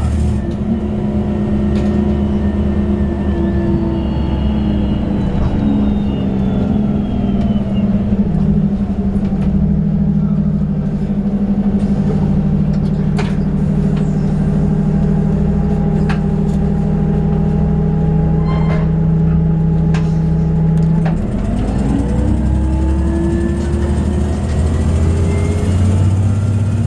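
Orion VII CNG transit bus engine and drivetrain running under way, heard from inside the bus. Its drone holds steady for a long stretch, then drops and climbs again near the end as the bus pulls away. A few sharp clicks sound here and there.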